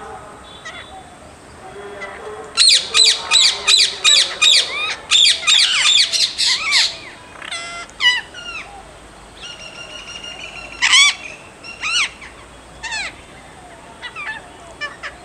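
Birds calling: a fast run of loud, repeated calls, about three a second, from a few seconds in to about halfway through, then scattered single calls.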